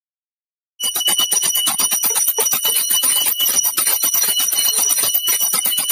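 Brass puja hand bell rung rapidly and continuously, a dense clatter of strikes over a steady high ringing. It starts abruptly about a second in.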